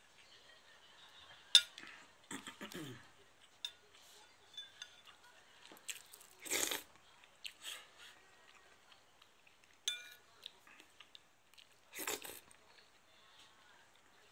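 Eating sounds: scattered clicks and clinks of chopsticks and tableware against the bowl and food tray, with chewing of a rice ball. A sharp click about a second and a half in is the loudest, and there are two brief rustling bursts about six and a half and twelve seconds in.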